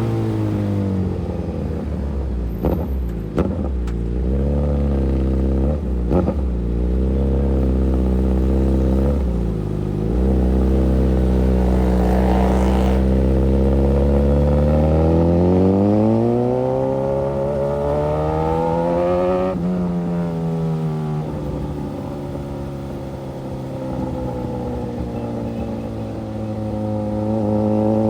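Suzuki GSX-S1000's inline-four engine heard from on board: running at low, steady revs with a few brief dips and knocks in the first ten seconds, then rising in pitch for about four seconds under acceleration before dropping sharply, and settling at moderate revs.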